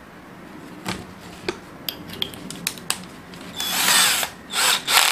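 Cordless drill being fitted with a 10 mm tile drill bit: scattered clicks as the bit goes in, then two short noisy bursts near the end as the chuck is tightened.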